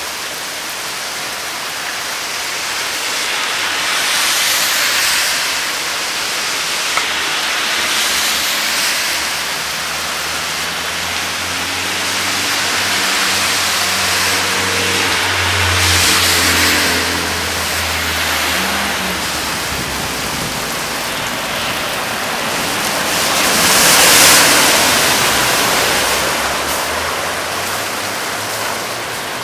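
Torrential cloudburst rain pouring onto water-covered pavement and a parked van, the rain noise swelling and easing in waves. A vehicle engine passes through the middle, loudest about halfway in.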